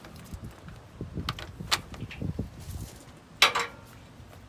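Hydraulic hose couplers being handled and pushed into a tractor's rear remote couplers: a few light clicks and rattles, then one louder metallic clunk about three and a half seconds in.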